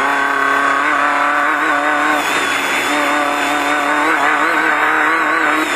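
Off-road race car engine running hard at high, nearly steady revs, its pitch wavering slightly; the revs drop right at the end.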